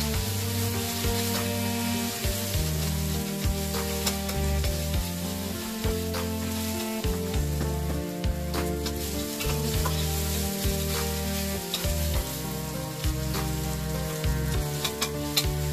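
Sliced onions sizzling in oil in a wok, stirred with a spatula that clicks and scrapes against the pan at irregular moments.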